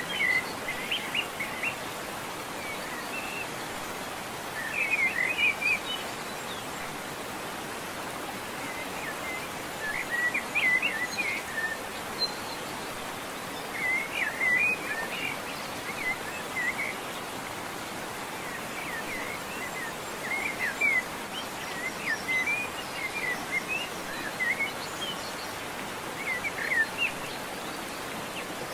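Steady hiss of a pot of seafood boiling hard over an open fire, with birds chirping in short bursts every few seconds.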